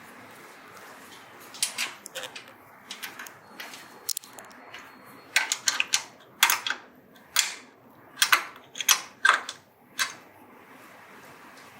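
A wrench working the lock nuts on the printer stand's metal levelling legs: a series of short, sharp metallic clicks and knocks, a few scattered at first, then coming quickly one after another over the second half.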